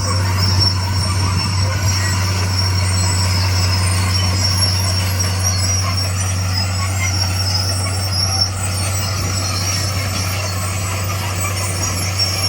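Komatsu D41 crawler dozer running steadily under work, its diesel engine a constant low drone with a thin, high squeal over it.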